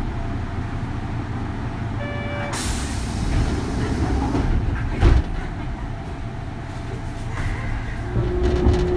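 Interior sound of a Kintetsu 3200 series electric train's motor car: a steady low rumble, with a burst of air hiss about two and a half seconds in and a loud clunk around five seconds. Near the end a steady tone starts from its Mitsubishi early-type GTO VVVF inverter.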